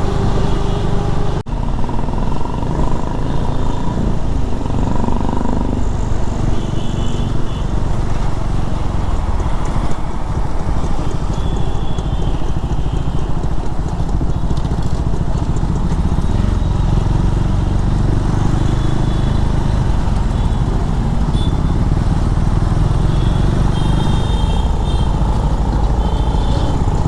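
KTM Duke 390's single-cylinder engine running while being ridden on the road, under a steady, dense rush of wind noise.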